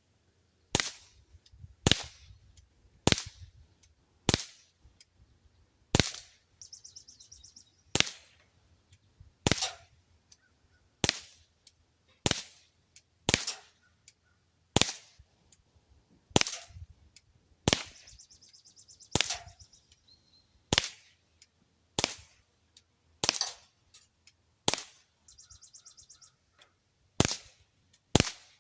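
Umarex Smith & Wesson M&P 40 CO2 BB pistol, a non-blowback model, fired in a steady string of about twenty sharp pops, roughly one every second and a bit, with a short pause near the end.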